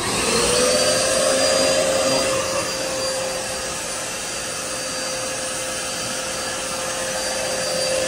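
Wet/dry shop vacuum switched on, its motor whining up to speed and then running steadily as it sucks out a clogged air-conditioner condensate drain line.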